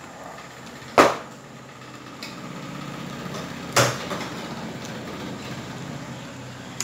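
Two sharp knocks, about a second in and again near four seconds, from the cream pack bumping a stainless steel mixing bowl as cream is squeezed into it, over a low steady hum.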